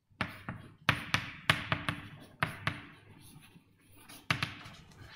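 Writing on a board: a series of sharp, irregularly spaced taps as the writing implement strikes the surface, with fainter scratching between them.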